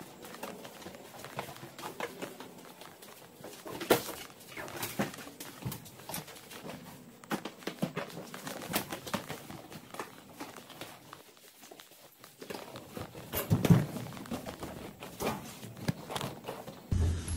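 Footsteps climbing concrete stairs, with irregular scuffs and a few louder knocks as a carried bag bumps along.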